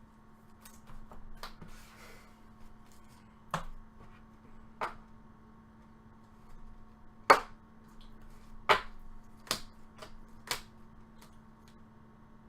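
Sharp, irregular clicks and taps from baseball cards and their plastic holders being handled, set down and sorted, about ten in all, the loudest about seven seconds in. A faint steady hum runs underneath.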